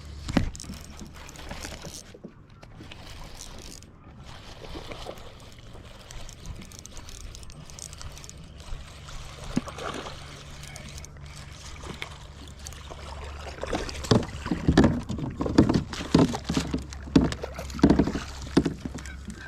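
Water sloshing and splashing around a fishing kayak, with a run of irregular sharp knocks and splashes in the last few seconds, typical of a bass being fought and landed beside the boat.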